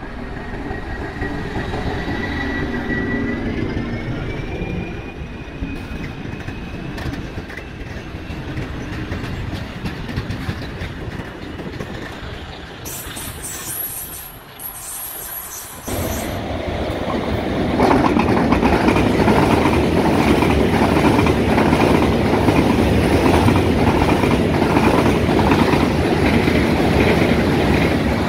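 Freight train passing close by: a Medway Class 1400 locomotive and a Class 5600 go by, with a thin whine rising in pitch about three seconds in, then open wagons roll past. About 16 seconds in the sound cuts to a long train of tank wagons rolling past, louder, with steady rhythmic wheel clatter.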